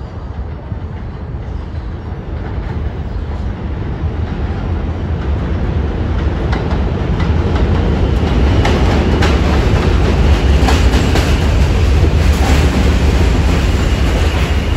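New York City subway train approaching on the track, growing steadily louder over the first half and then running at full level. It rumbles with many sharp clacks of the wheels over the rail joints.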